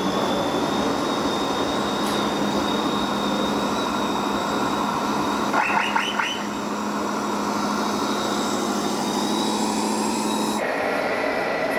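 Radio-controlled model tipper truck driving, with a steady drone and a thin high whine over hall noise. Three short rising chirps come about six seconds in.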